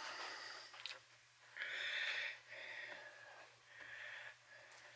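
A man breathing audibly through his nose, several short breaths, the strongest about two seconds in, over a faint steady electrical hum.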